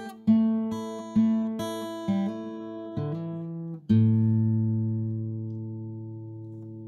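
Background music on guitar: strummed chords about every half second, then a final chord about four seconds in that rings on and slowly fades.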